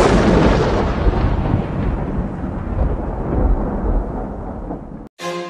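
Thunder sound effect: a loud clap trailing into a long rolling rumble that slowly dies away, then cuts off abruptly about five seconds in as music begins.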